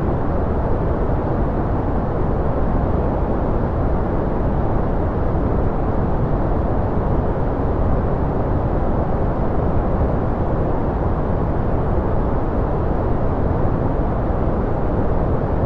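Continuous generated white noise: a steady, unchanging hiss, dull and deep rather than bright, with most of its weight in the low end.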